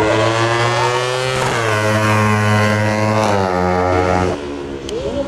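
JP250-class racing motorcycle accelerating hard out of a corner. The engine pitch climbs and drops sharply at two upshifts, about a second and a half and a little over three seconds in, then fades as the bike pulls away.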